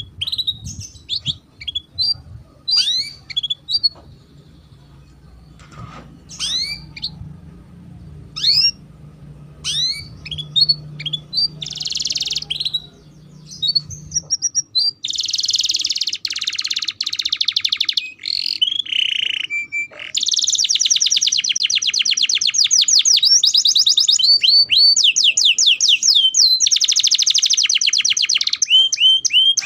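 Canary singing. It opens with separate rising chirps and whistles over a low hum; the hum stops about fourteen seconds in. From there on the song turns into long, rapid trills and rolls, almost without a break.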